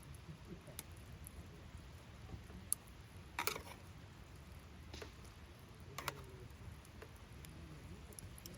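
Campfire wood crackling: a few scattered sharp pops and clicks, the loudest about three and a half seconds in, over a faint low rumble.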